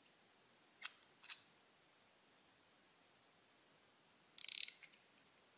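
Two light clicks about a second in, then a short burst of rapid clicks near the end, from a hex driver with a 0.3 Nm torque-limiting adapter tightening a grub screw in a dental milling tool's collar. The burst is the adapter's clutch slipping as the screw reaches its set torque.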